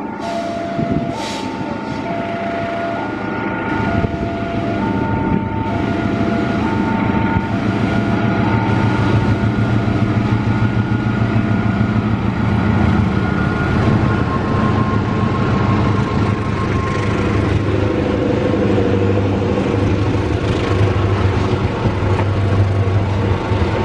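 A level-crossing warning alarm sounds in an alternating two-tone pattern for the first several seconds. Meanwhile a KAI CC206 diesel-electric locomotive approaches and passes, its engine running loud. Then comes the steady rumble of a long rake of passenger coaches rolling by.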